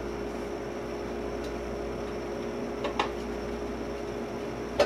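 Steady hum of a refrigerator running, with two light knocks about three seconds in and near the end as a cat moves among ceramic jars on top of it.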